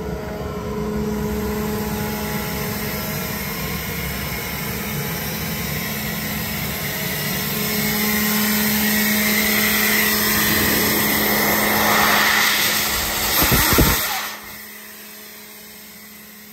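Kaeser ASD 50 T SFC inverter-driven rotary screw air compressor running on load, a steady machine hum with a held low tone. A rushing noise swells over the last several seconds, then the sound drops sharply to a much quieter hum near the end.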